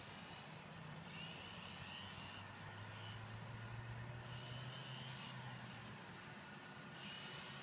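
Remote-control model airplane's motor and propeller droning faintly, with a higher whine that fades in and out three times as the plane flies about.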